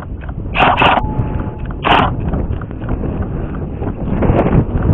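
Wind rumbling on a body-worn camera microphone, broken by three short, loud, sharp sounds, two close together just under a second in and one about two seconds in.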